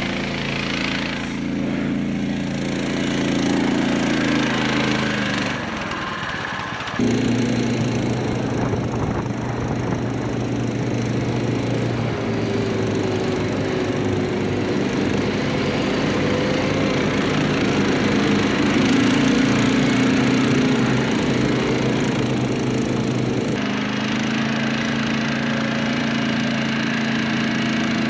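Small engine of a Snowdog Standard B13 tracked snow machine running under load as it rides through snow, a steady drone whose pitch and level jump abruptly twice.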